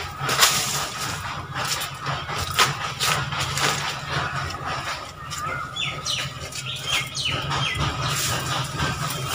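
Dry-leaf and twig fire crackling under a cooking pot, with irregular sharp snaps and the rustle of sticks being pushed into the flames. A few short high chirps falling in pitch come through in the second half.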